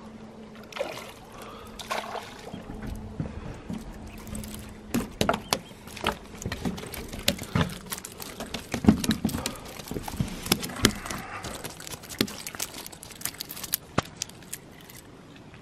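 Water poured out onto a wooden wharf deck, splashing and trickling, with many sharp knocks and clicks of handling. A steady low hum runs under the first five seconds.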